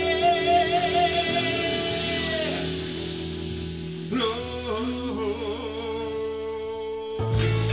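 Live soul band music: a long held note rings over the band for about two and a half seconds, then a new wavering melody line comes in about four seconds in, over steady bass notes.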